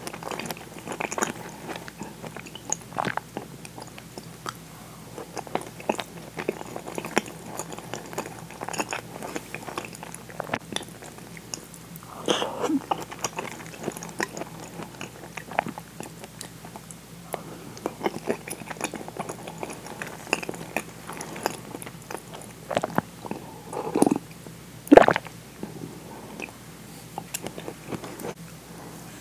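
Close-miked chewing and wet mouth sounds of a person eating potato and onion pieces from miso soup. Chopsticks click against the soup bowl now and then, with a few louder clicks, the loudest near the end.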